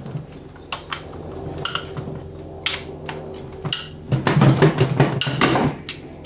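Ratchet wrench loosening bolts at the timing-belt end of a Subaru EJ25D engine. Scattered metallic clicks and knocks give way, about four seconds in, to a run of rapid ratchet clicking that lasts a second and a half.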